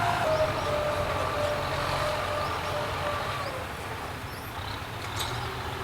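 Kubota M9540 tractor's diesel engine running, its whine dropping in pitch and fading as the sound eases off.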